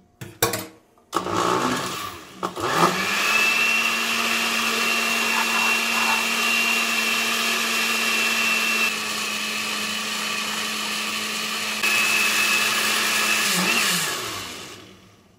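Electric blender beating a liquid dessert base of milk, cream, condensed milk and melted gelatin. A few knocks, then the motor starts about a second in, dips briefly, settles into a steady high whine over a low hum, and winds down near the end.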